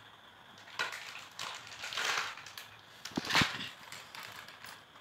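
Crinkling and rustling of a foil Lay's crisp packet as it is opened and handled, in several short bursts, the loudest about three and a half seconds in.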